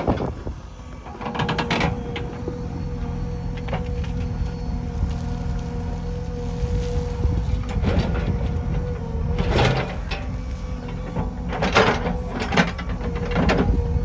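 JCB backhoe loader's diesel engine running under load with a steady tone, broken several times by short bursts of clattering as the bucket digs into stony soil and dumps it into a trolley.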